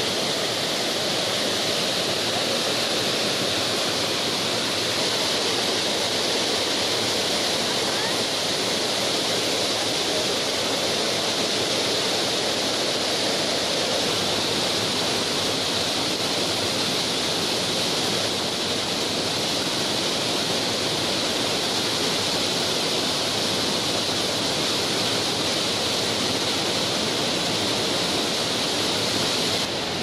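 Waterfall and churning white water rushing in a steady, dense roar, with a slight drop in level just before the end.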